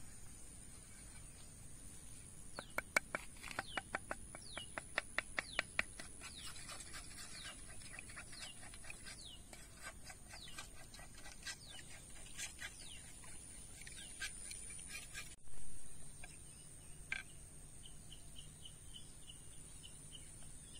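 Wild birds calling in open grassland: a quick run of sharp notes in the first seconds, then many short falling chirps and later a row of short even notes, over a steady high insect drone. A brief rustle or knock about three quarters of the way through.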